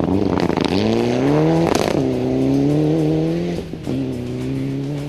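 A Mitsubishi Lancer Evolution rally car accelerating hard away on a gravel stage, with gravel spraying under the tyres near the start. The engine climbs in pitch for about a second, then breaks twice briefly for upshifts, pulling at high revs in between.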